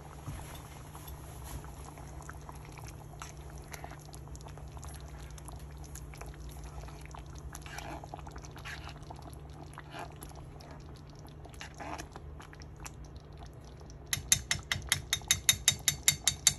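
Thick creamy soup bubbling and popping as it simmers in a skillet, over a steady low hum. Near the end, a quick run of loud knocks, about six a second, as a spoon stirs and strikes the pan.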